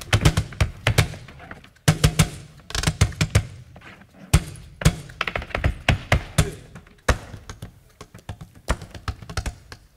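Flamenco percussion without melody: quick, uneven runs of sharp knocks and stamps, footwork on the stage and hands striking a wooden box, broken by short pauses between phrases.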